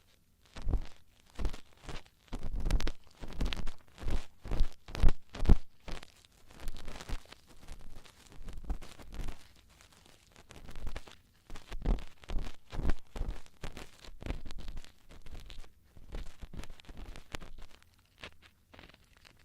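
ASMR ear-cleaning tools scraping and rustling close against the microphone in quick, irregular crackling strokes, with a few brief pauses.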